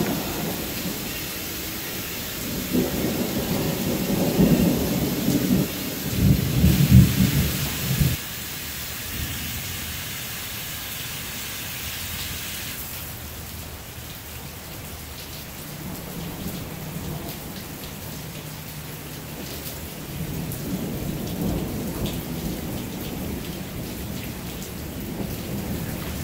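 Steady rain, with low rolling thunder rumbling strongest a few seconds in and again more softly later on.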